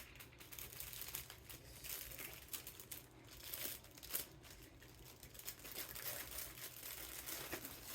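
Packaging crinkling and rustling as it is handled, in a run of irregular small crackles.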